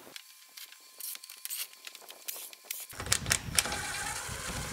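Power drill with a screwdriver bit backing screws out of a solar panel's metal mounting bracket. Light clicks and scrapes of the bit on the screw heads come first; from about three seconds in the drill motor runs, with sharp clicks over it.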